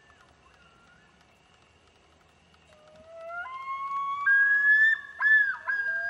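Common loon calling: faint for the first few seconds, then from about three seconds in a long, clear call that climbs in steps, breaking near the end into repeated rising-and-falling notes, with a second, lower held note sounding under it.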